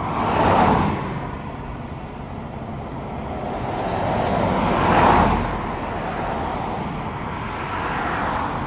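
Road traffic: vehicles passing close by, their tyre and engine noise swelling and fading, loudest just after the start and again about five seconds in, with a softer pass near the end.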